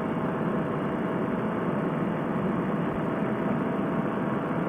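Paramotor trike engine running steadily in flight, heard with the rush of wind past the microphone as an even drone with a faint constant hum.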